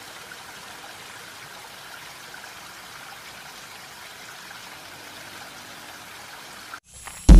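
Steady, even hiss of outdoor ambience with no distinct events, breaking off near the end into a sudden loud burst of music.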